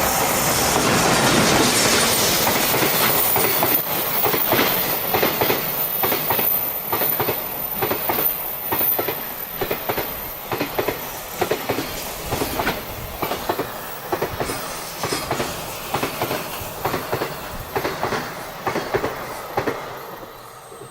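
E721 series electric train passing close by: a loud rush of the cars going past, then its wheels clacking over the rail joints in regular clusters that fade as the train moves away.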